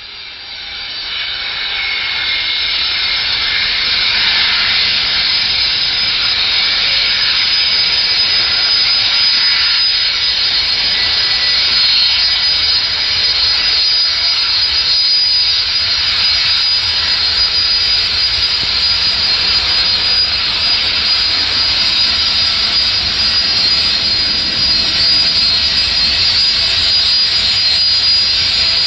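Fokker 100's two rear-mounted Rolls-Royce Tay turbofans running at taxi power: a steady, loud, high whine made of several close tones over a rushing jet noise. It fades in over the first couple of seconds, then holds level.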